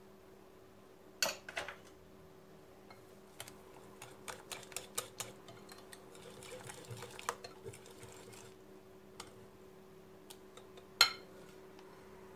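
Metal wire whisk stirring batter in a glass bowl, its wires clicking and tapping against the glass in a quick irregular run, with a sharp knock about a second in and a louder one near the end. A faint steady hum lies underneath.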